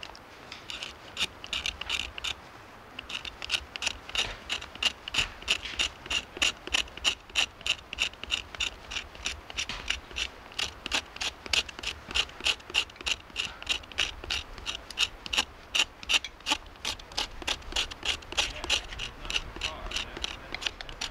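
Hand saw cutting through wood in quick, even rasping strokes, about three a second. It starts about a second in, pauses briefly, then keeps a steady rhythm and eases off near the end.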